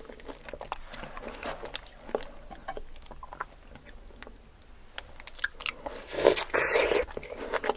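Close-miked ASMR mouth sounds of someone chewing fresh fruit, with many small wet clicks and smacks. About six seconds in comes a louder, juicy bite into a piece of kiwi, lasting under a second.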